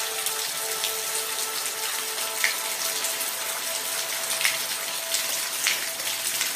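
Steady rain hiss with individual drops splashing now and then, over faint held notes of soft background music.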